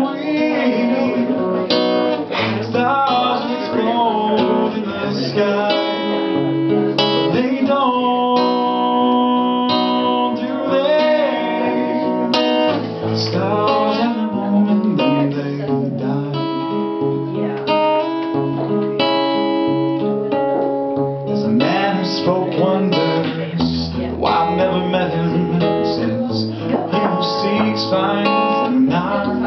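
Acoustic guitar playing: a picked melody over low bass notes, with strummed chords.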